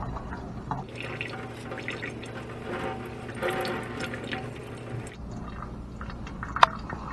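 Tap water running and splashing in a kitchen sink as dreadlocks are rinsed under it to wash out conditioner. The flow sound drops away about five seconds in, and there is one sharp click near the end.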